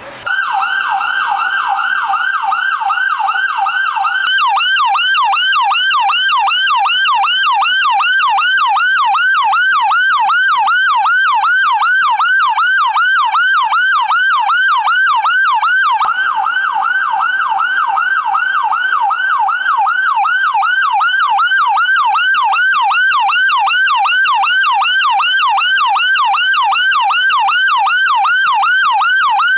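Loud vehicle siren in a fast yelp, its pitch sweeping up and down several times a second without a break. It starts suddenly, and its sweeps slow slightly after a few seconds.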